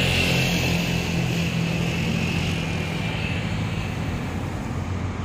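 Steady engine drone with a low hum over outdoor noise, slowly fading.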